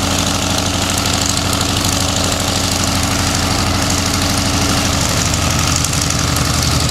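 Pratt & Whitney R-2800 eighteen-cylinder radial engine of an F4U Corsair running at taxi power, with a rapid, even pulsing. Its note shifts slightly about five seconds in.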